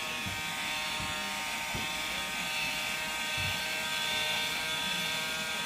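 Black & Decker 7.2 V cordless handheld vacuum running with a steady motor whine, its nozzle held against a cat's fur.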